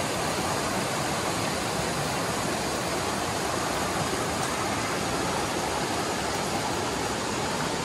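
Creek water running: a steady, even rush with no breaks.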